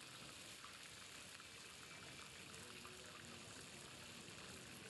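Masala-coated fish deep-frying in hot oil: a faint, steady sizzle with fine crackles.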